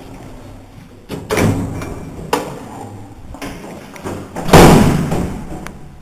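Doors of an old Dźwigi i Anteny passenger-goods lift being worked as the car is left: a run of metal thuds and clanks, with the loudest, a door banging shut, about four and a half seconds in.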